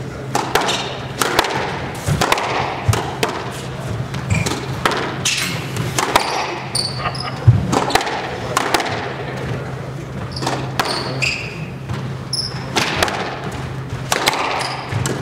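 Squash rally: the ball smacked by racquets and hitting the walls at about one to two sharp hits a second, the loudest about seven and a half seconds in, with short high squeaks of shoes on the hardwood court floor. A steady low hum runs underneath.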